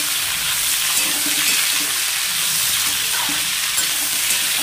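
Chopped ivy gourd (kundru) sizzling in hot mustard oil in a metal kadhai over high heat, stirred with a steel spatula that scrapes and clicks against the pan.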